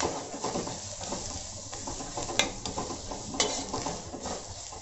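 A flat metal spatula stirring frying onions and ground spices in a metal kadai, scraping over the pan with a couple of sharp taps against the metal, over a light sizzle of frying.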